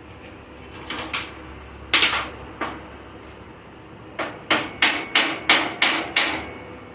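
Hammer blows: a few separate strikes, then a quick run of about seven at roughly three a second.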